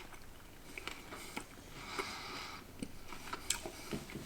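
A person chewing crunchy smoked crickets, with faint scattered crunches and clicks.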